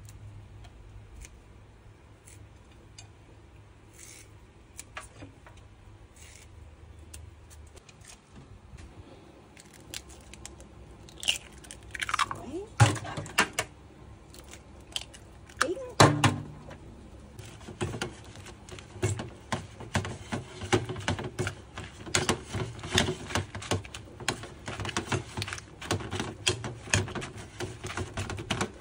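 Soft handling of cha-om (climbing wattle) shoots at first, then a few loud knocks and clatters. After that, a metal spoon clinks and scrapes rapidly in a ceramic bowl as the cha-om is mixed with raw egg.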